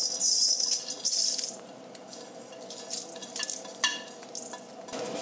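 Dry whole spices (coriander seeds, peppercorns, cumin, cloves, cardamom) poured into a dry iron kadai: a dense pattering rattle for about the first second and a half, then a few scattered clicks as more pieces drop in.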